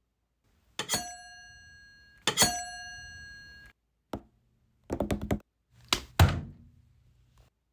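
Two sharp bell-like dings, each ringing out for over a second, from a microwave oven. They are followed by a quick run of clicks and a low hum broken by a dull thud.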